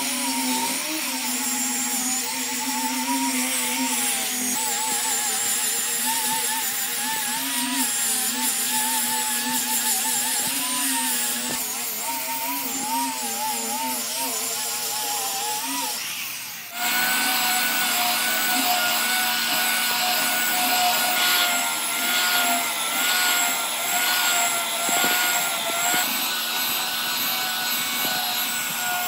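Electric power tools working wood. For the first two-thirds a motor whine wavers up and down in pitch as the load changes; after an abrupt cut comes a steadier, higher whine.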